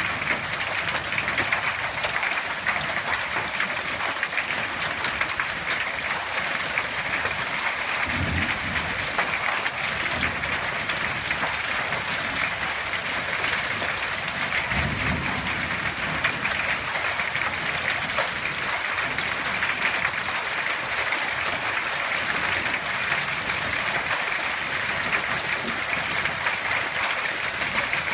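Heavy rain pouring steadily onto trees and foliage, a dense, even hiss. Two brief low rumbles come through about eight and fifteen seconds in.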